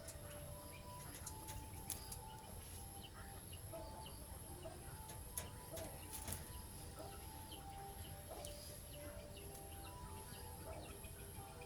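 Faint bird calls: scattered short chirps and whistled notes over a steady low rumble.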